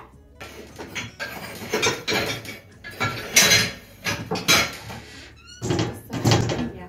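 Kitchen wall cabinet opened and things handled inside it: a run of rustling, knocking bursts, with a brief squeak near the end.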